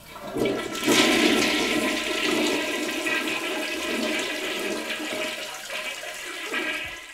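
Toilet cistern flushing after its dual-flush push button is pressed, with the water supply turned off so the cistern empties. The rush of water is strongest about a second in and dies away near the end.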